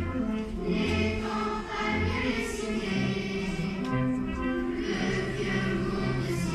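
A choir singing slow, held notes over a low bass line.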